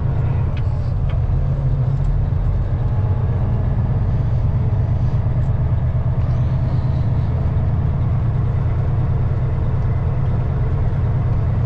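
Peterbilt semi truck's diesel engine running steadily as the truck creeps along at low speed, a deep even drone heard from inside the cab.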